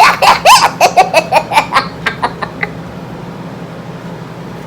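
A child laughing in a quick run of high-pitched giggles, several a second, trailing off after about two and a half seconds; then only a faint low hum.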